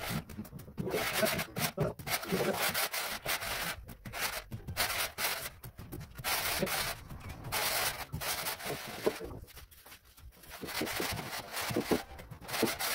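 Wooden screed board and gloved hands scraping across a gritty cement floor screed being levelled by hand, a rough rasping in repeated strokes about a second long, with a quieter lull about ten seconds in.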